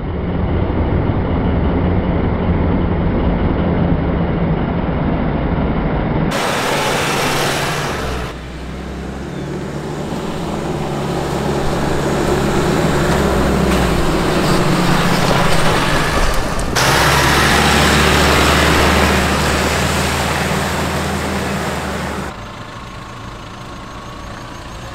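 Nissan Navara 4x4 engine running as it drives steep dirt tracks, with tyre and gravel noise, over several cut-together shots whose sound changes abruptly about 6, 8, 17 and 22 seconds in.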